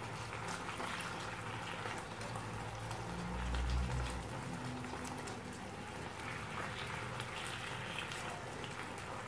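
Chicken fillets and zucchini simmering in oyster sauce in a frying pan, the sauce bubbling with a steady fizz of fine crackles and pops. A dull low bump comes about three and a half seconds in.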